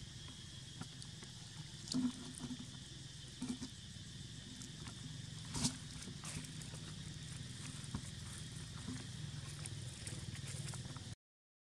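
Outdoor forest ambience: a steady insect drone with a low hum underneath, broken by a few short taps and rustles, the loudest a little past the middle. The sound cuts out completely just before the end.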